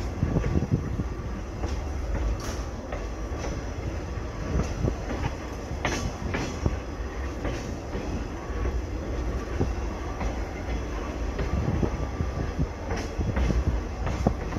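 Rolling railroad caboose: a steady low rumble from the wheels and trucks, with a few sharp clicks at irregular intervals as the wheels cross the rail.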